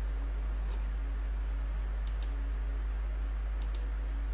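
Computer mouse clicking about five times, two of them in quick pairs, over a steady low electrical hum.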